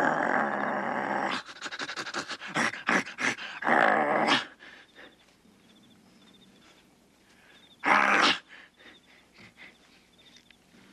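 A werewolf's growling and heavy panting: a loud snarl, then a quick run of short rough breaths and growls, and one more loud growl about eight seconds in.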